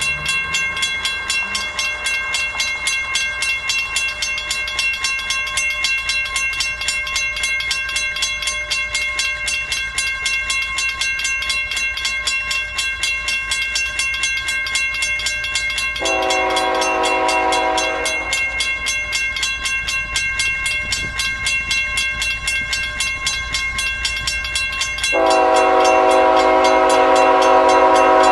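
Approaching Canadian National freight's GE ET44AC locomotive sounding its horn: one blast about two seconds long just past the middle, then a longer, louder blast starting near the end. Underneath runs a continuous, rapidly pulsing high ringing.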